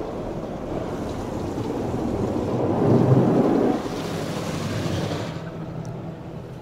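High-pressure spray from a touchless PDQ LaserWash 360 car wash beating on a Dodge Grand Caravan's roof and windows during the polish stage, heard inside the van's cabin as a rain-like rush. It is loudest about three seconds in and eases off near the end.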